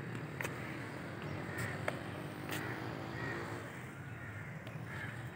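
Crows cawing again and again, over a steady low rumble, with a few sharp ticks in between.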